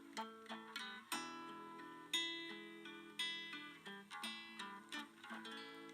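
Quiet acoustic guitar playing an instrumental interlude of a hymn tune, with plucked notes and strummed chords ringing and dying away.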